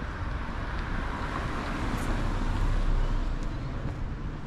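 Street traffic: a car driving past, its tyre and engine noise swelling to a peak about three seconds in and then easing off.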